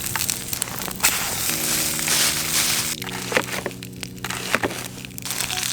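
Sausages sizzling and crackling in a pan over a campfire, with scattered sharp pops, under background music that shifts between steady chords.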